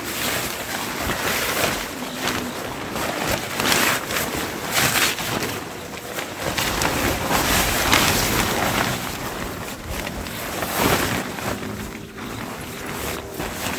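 Gusty wind rushing over the microphone, swelling and easing every second or two.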